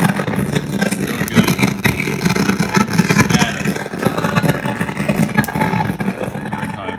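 A 2016 Harley-Davidson Ultra Limited's radio speakers putting out a loud, crackling, garbled noise with the SiriusXM channel selected, not the song shown on the screen: the XM radio defect. It drops lower near the end.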